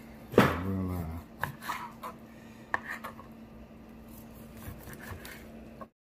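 Ceramic knife slicing raw monkfish tail on a plastic cutting board, with a few light taps of the blade on the board. About half a second in, a short sound falling in pitch is the loudest thing, and all sound cuts off near the end.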